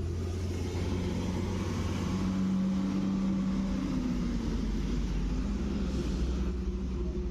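A Tata BS6 truck's diesel engine idling with a steady low rumble, with a humming tone that swells a little in the middle.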